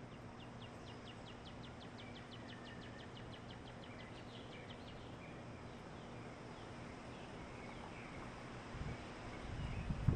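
Faint outdoor ambience: a small bird repeats a high chip about five times a second for the first five seconds, with a few softer chirps, over a low steady hum. Near the end a louder low rumble of wind noise starts to rise.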